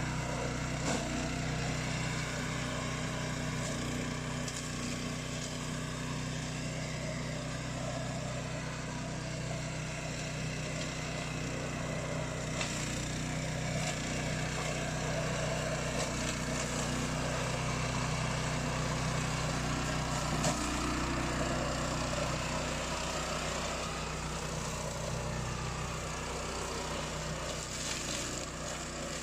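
Engine of a Beast 800 remote-control flail mower running steadily, with a constant even drone and a few faint clicks.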